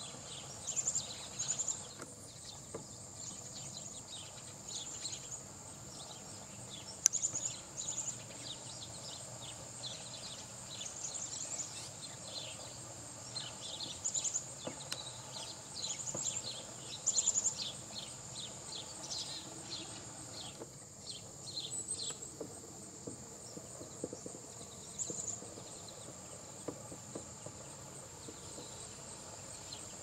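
A steady, high-pitched insect trill, with short bird chirps coming in small clusters every few seconds and one sharp tap about seven seconds in.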